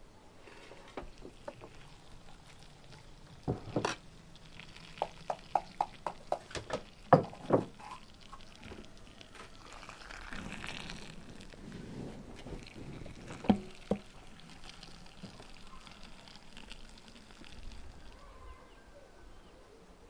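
Handling sounds: scattered knocks and taps, including a run of quick even taps about four a second midway and a few louder knocks, with a short stretch of soft rustling noise in between.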